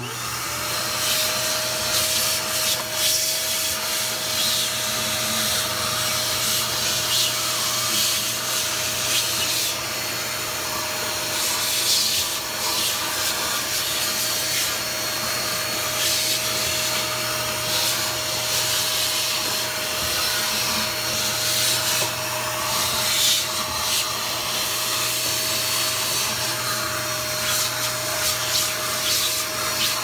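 JK-2 handheld electric vacuum cleaner switched on right at the start and running with a steady whine. Its nozzle rubs and scrapes over the plastic floor of a washing machine tub as it sucks up insect debris.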